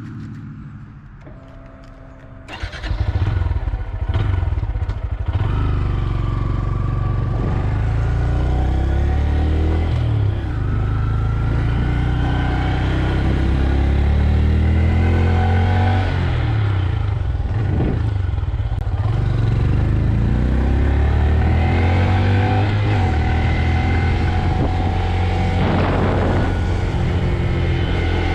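Stock Honda Grom's small air-cooled single-cylinder engine (2025 model) catching about two and a half seconds in. It then runs loud, revving up and down again and again with its pitch repeatedly rising and falling.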